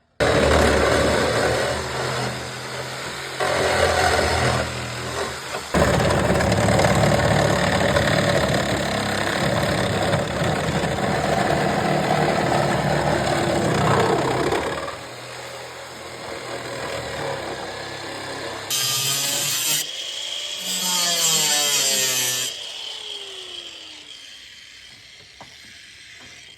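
Power tool cutting through the sheet metal of a car's trunk. It is loud for about the first fifteen seconds, then quieter, with two shorter bursts near the end.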